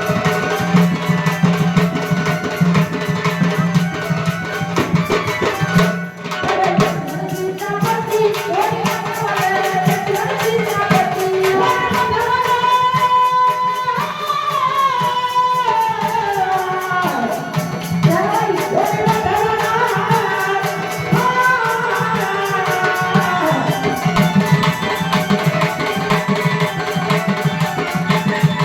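A woman singing a devotional Marathi folk song telling the Ramayana, over a steady tabla and percussion beat. The first several seconds are instrumental, and the melodic voice comes in about eight seconds in.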